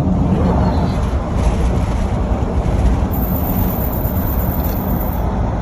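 Steady road and engine noise of a moving car, a continuous low rumble.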